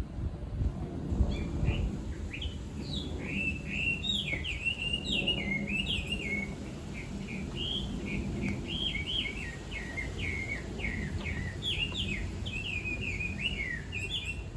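Chinese hwamei singing a long, unbroken run of quick, varied whistled phrases, jumping up and down in pitch, over a steady low background rumble.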